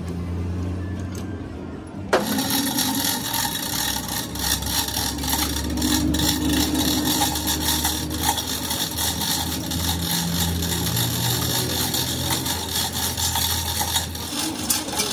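Manual chain hoist being worked by hand, its chain rattling and clicking rapidly and continuously as the axle is lifted, over a steady low hum.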